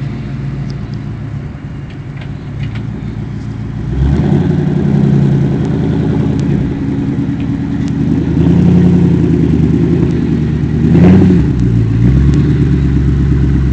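1999 Ford Mustang GT's 4.6-litre V8 running smoothly on its newly fitted replacement intake manifold. It gets louder about four seconds in as it is put under more load, with a brief rise and dip in pitch near the eleven-second mark.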